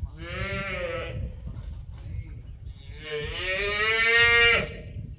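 A young heifer calf bawling twice: a short call, then a longer, louder one that cuts off suddenly.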